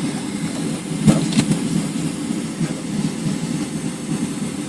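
Steady low rumble inside the cabin of a Boeing 737 waiting on the ground, with two sharp knocks about a second in.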